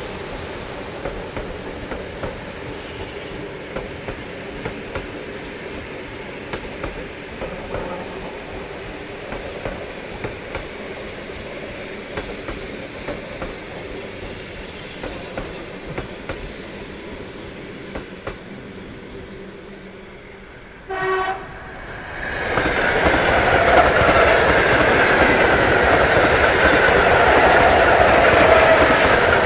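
Suburban electric multiple unit running on the line with a steady rumble and clickety-clack of wheels over rail joints. About 21 s in comes a short horn blast, and then a train passes close by, much louder, to the end.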